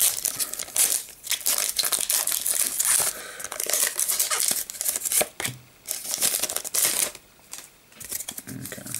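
Foil wrapper of a Pokémon trading card booster pack being torn open and crinkled by hand, crackling in quick irregular bursts, with a short lull near the end.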